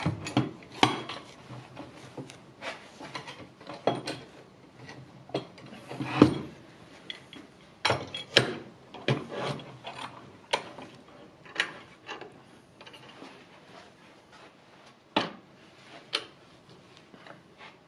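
Steel G-clamps being fitted and their screws wound tight on a wooden batten at the edge of a wooden workbench: irregular clicks and knocks with scraping between them, one sharper knock about six seconds in.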